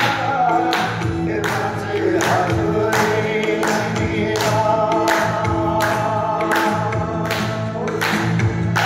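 Song with group singing over a steady beat, a sharp hit about twice a second, played as music for a dance.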